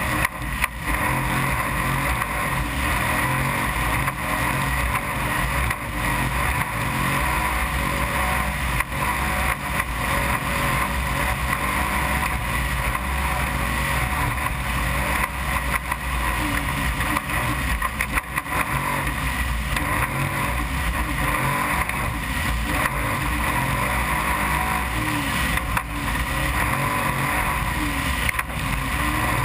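Desert racing trophy truck at speed, its engine running hard in a steady drone, with a few sharp knocks along the way.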